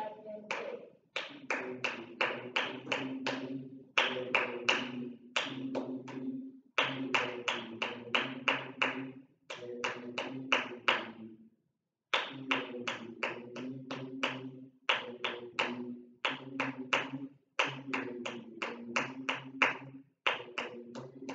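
Hand claps beating out a steady rhythm, about four a second, in phrases with short breaks, with low voices chanting recorder note names along in time.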